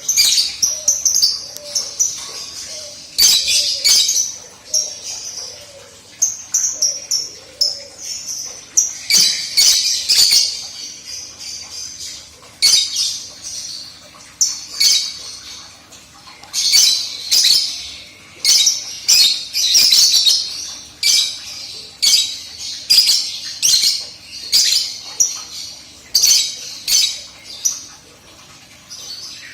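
Lovebirds chattering: a near-constant stream of short, shrill chirps and squawks, coming in clusters with brief lulls.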